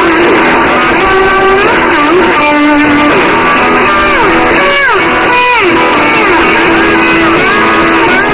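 Electric-guitar music playing steadily, with several notes sliding up and down in pitch.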